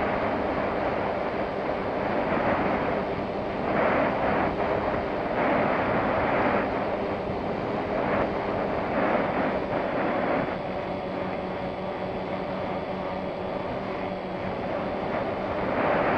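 A small propeller aircraft's motor droning steadily under heavy wind rushing over the microphone, with the wind noise swelling louder several times.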